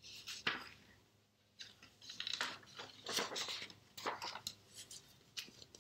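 Paper sheets and cards being handled and shuffled: rustling with light clatter in several short bursts.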